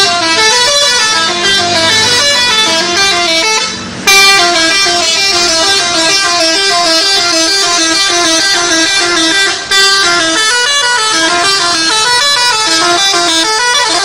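Bus 'telolet' horn: a multi-tone musical horn playing a quick tune of stepping notes, breaking off briefly about four seconds in and again near ten seconds before starting over.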